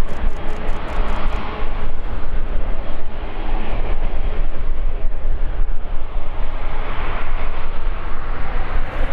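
Airbus A350-941's Rolls-Royce Trent XWB jet engines running at low power as the airliner taxis slowly on the runway before takeoff: a steady, loud rumble and hiss.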